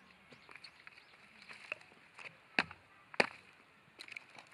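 Firewood being split: two sharp wooden strikes a little over half a second apart in the middle, among lighter knocks and cracks.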